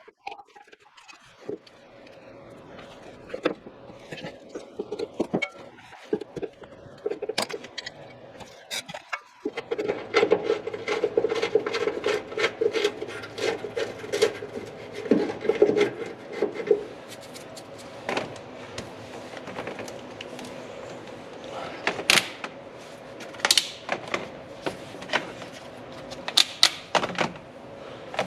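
Scattered clicks, clanks and knocks of hand tools and metal exhaust parts being handled while fitting an axle-back muffler. The sounds come thickest between about ten and seventeen seconds in.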